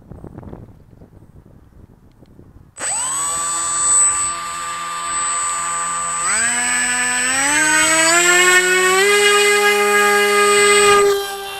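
Electric RC plane's SunnySky 2216 1250kV brushless motor spinning an 8x6 prop. About three seconds in it spools up suddenly to a high whine, steps up in pitch twice to full throttle for the hand launch, then drops away shortly before the end.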